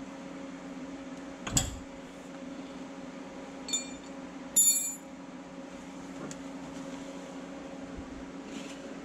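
Hand-tool work under a vehicle: a single knock about a second and a half in, then two short, ringing metallic clinks of tools or hardware being handled near the floor a few seconds in, over a steady low hum.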